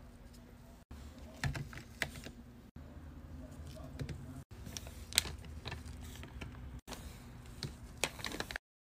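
Gloved hand handling gummy candies in a plastic candy tray: a loose run of soft clicks and taps from candy and the plastic glove against the tray. The sound drops out abruptly several times, at the video's cuts.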